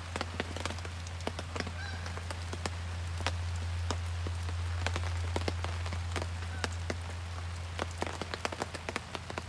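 Steady rain falling on a tarp shelter and the forest floor, with water dripping in many sharp, irregular taps over a steady low hum.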